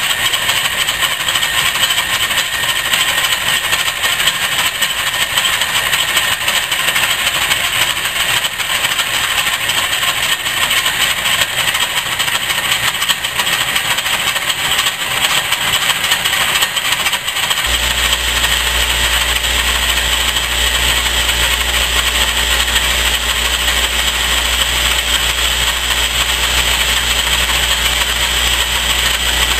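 Rockford metal lathe running while a cutting tool faces off the end of a spinning metal bar, a steady machining noise. A low hum comes in suddenly about two-thirds of the way through and holds.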